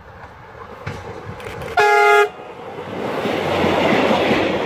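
A MÁV red-and-yellow passenger railcar sounds one short horn blast about two seconds in as it approaches. It then passes close by with a rising rush of wheel and rail noise.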